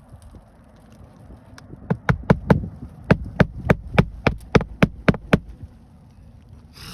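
Claw hammer driving roofing nails through an asphalt shingle into the roof deck: a quick run of about fourteen sharp blows, roughly three a second, setting a nail.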